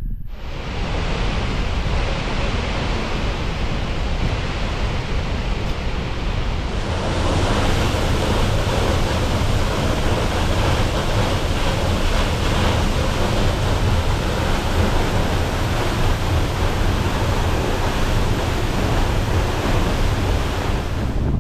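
Waterfall: a steady, dense rush of falling water, which grows louder about seven seconds in.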